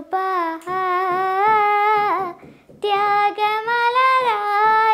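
A young girl singing a Malayalam song in long held, gently wavering phrases, with a short breath pause a little over two seconds in.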